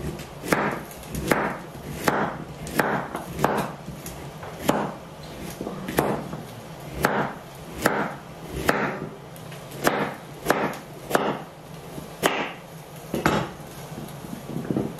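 Knife chopping carrots on a wooden cutting board, a sharp chop about once a second, unevenly spaced.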